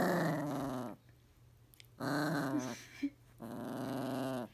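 Small dog growling in three drawn-out grumbles of about a second each while its belly is rubbed.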